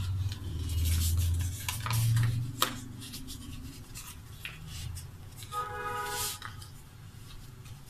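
A sheet of paper being folded and creased by hand: a low rubbing as the hands press and slide the paper for the first couple of seconds, then scattered crisp crackles. A brief pitched tone sounds about six seconds in.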